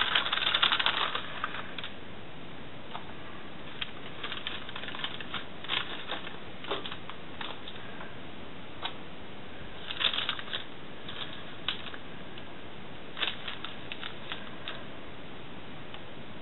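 Tracing-paper pattern crinkling as it is handled for about the first two seconds, then scattered light clicks and rustles as it is unpinned from a knitted jumper.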